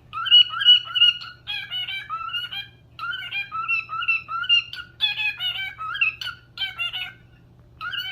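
Pet bird whistling a melody in short repeated phrases of clear pitched notes, with brief pauses between phrases and a faint steady hum underneath.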